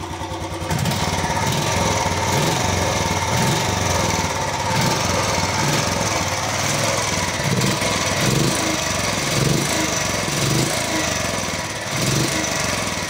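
Royal Enfield Bullet 350 BS6's fuel-injected single-cylinder engine idling, heard close to the exhaust: a steady, even beat, louder from about a second in. It is a neat sound with no unusual noise, the old Bullet note kept after the change to fuel injection.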